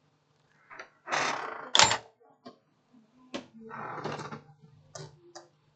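Small handling noises at a phone-repair bench: a few sharp clicks and short rustling noises over a faint steady low hum.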